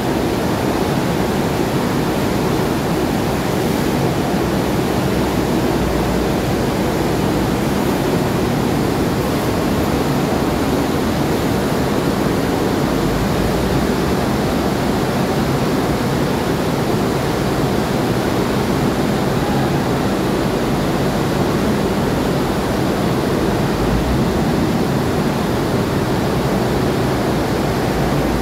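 An amphibious assault vehicle's engine running as the vehicle churns through the water out of a ship's flooded well deck: a steady, heavy rushing noise with a couple of deeper swells.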